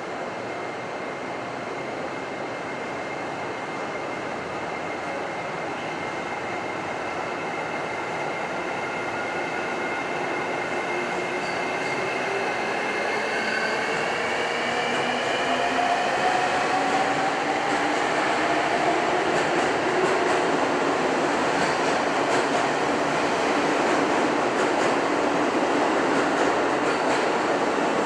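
An electric commuter train pulling out of an underground station platform, growing steadily louder as it passes. The whine of its traction motors rises in pitch as it accelerates over the first half, then gives way to heavy wheel and rail rolling noise echoing in the tunnel.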